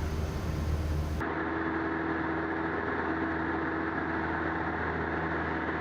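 Cessna 172M's four-cylinder Lycoming engine and propeller droning steadily in cruise, heard inside the cabin. About a second in, the sound turns abruptly thinner: the deep rumble drops away and a steady hum stays.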